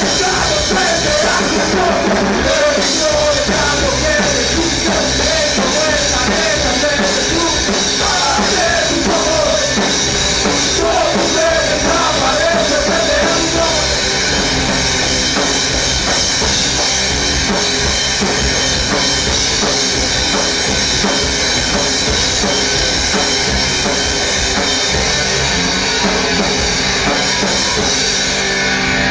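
Groove metal band playing live: drum kit, distorted guitars and bass at full volume. Over the first half a lead melody bends and wavers in pitch, then the band settles into a steady, driving rhythmic riff.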